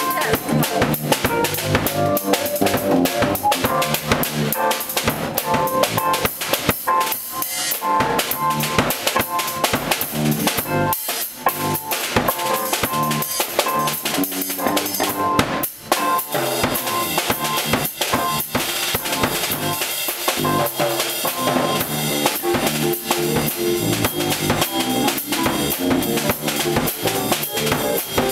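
A small live band playing a groove: a drum kit keeps a steady beat on kick and snare, with keyboards and guitar playing held notes and chords over it.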